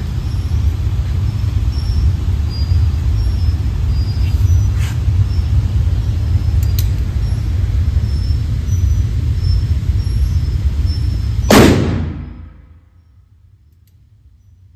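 A steady, loud low rumble, then a single .44 Magnum revolver shot about eleven and a half seconds in, ringing off the walls of the indoor range for about a second before dying away.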